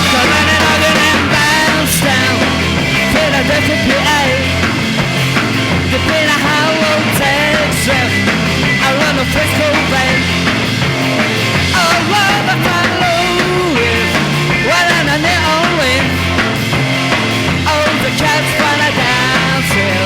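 Rock and roll band with electric guitars, bass and drums playing an instrumental break. The full band comes in at once at the start, and a lead line bends up and down in pitch over a steady driving rhythm.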